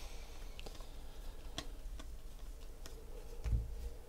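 Football trading cards being flipped through by hand: a few light, scattered clicks of card edges snapping past each other, with a soft low thump about three and a half seconds in.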